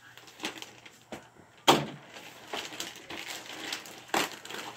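Plastic shipping bag being cut with scissors and crinkled as a boxed toy is pulled out of it. Two sharp knocks stand out, the louder a little under two seconds in and another near the end.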